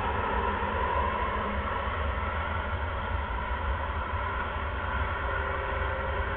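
Steady hiss with a constant low hum, unchanging throughout, typical of a live nest-box camera's microphone.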